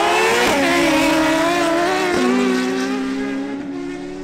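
Two inline-four sportbikes, a Suzuki Hayabusa GSX-1300R and a Honda CBR1000RR, at full throttle on a quarter-mile drag run. The engine note climbs and drops sharply at upshifts about half a second in and again about two seconds in, then fades somewhat as the bikes pull away.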